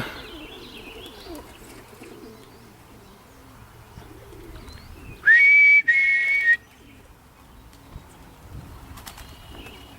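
Pigeons cooing faintly, then about halfway through a loud two-note whistle lasting just over a second: a steady high note followed by a slightly lower one.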